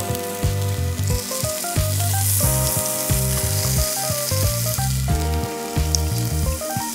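Block of beef tongue sizzling as it sears on a charcoal shichirin grill, with one sharp pop about six seconds in. Background music with a melody over a bass line plays throughout.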